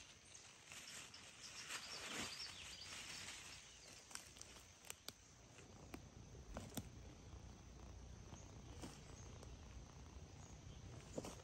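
Faint rustling and crinkling of a plastic bag and leaves as a dead squirrel is handled, strongest in the first few seconds, then a few soft clicks and taps. Quiet woodland background.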